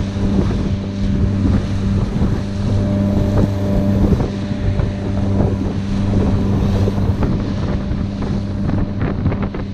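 Outboard motor of a Bass Tracker aluminium bass boat running steadily at cruising speed, a constant low hum, with wind buffeting the microphone and the wake rushing past.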